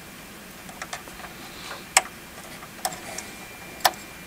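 Small plastic clicks and ticks of a PoE jumper-cable connector being handled and clipped into a router's PoE daughtercard: a few faint ticks in the first second, then three sharp clicks about two, three and four seconds in.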